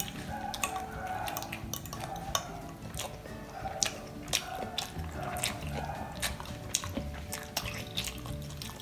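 Close-miked wet mouth sounds of chewing stir-fried instant noodles: irregular sharp smacks and clicks, with a fork twirling in a glass bowl. Soft background music plays underneath.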